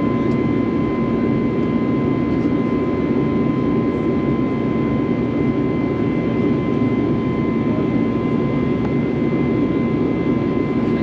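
Steady cabin noise of an Airbus A321 in flight: an even rush of jet engine and airflow noise with a steady whine-like tone above it.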